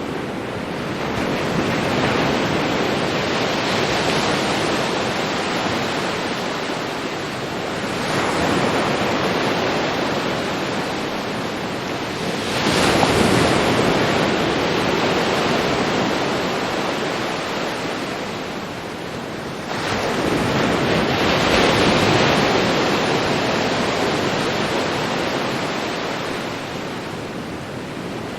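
Ocean surf on a beach: waves break and wash in one after another. Four surges come in, each rising quickly and fading over several seconds as the water runs back.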